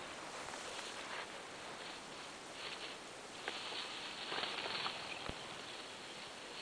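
Footsteps crunching and rustling through dry grass, densest about four to five seconds in, with a couple of sharp clicks.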